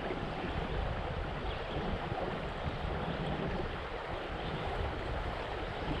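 Steady rush of a shallow river running over rocks, with some low wind rumble on the microphone.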